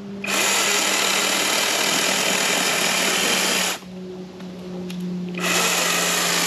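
Handife 20-volt brushless battery chainsaw with an 8-inch bar cutting a small log in two passes. Its motor hums steadily throughout, and the sound turns much louder as the chain bites the wood for about three and a half seconds. It drops back to the motor hum as the saw is lifted, then bites again about five seconds in.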